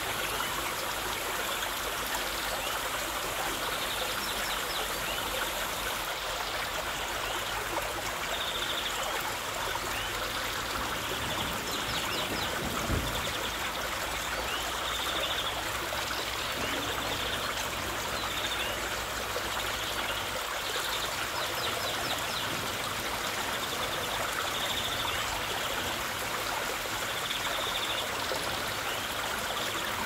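Steady rush of water from a small waterfall and the rocky stream below it, splashing and trickling without pause.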